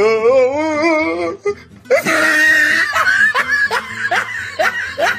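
Dubbed-in comedy laughter sound effects over music: a wobbling, quavering laugh first, then from about two seconds in a burst of laughter with a run of short rising laughs.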